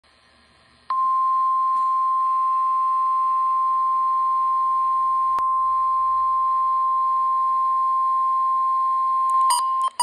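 NOAA Weather Radio warning alarm tone from a Midland handheld weather radio's speaker: one steady high-pitched tone starting about a second in and lasting about eight seconds, signalling that an emergency alert message follows. A few short beeps come near the end.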